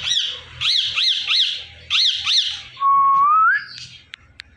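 Indian ringneck parakeet giving a quick run of six shrill, arched squawking calls, then one loud whistle that holds steady and glides upward, followed by a few faint clicks.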